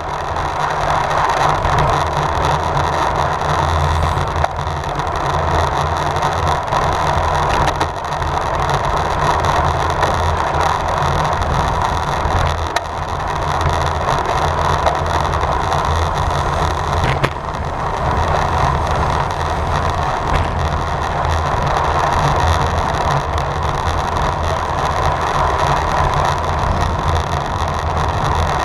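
Steady wind rush on the microphone over the hum of tyres on the road, from a road bike ridden at racing speed.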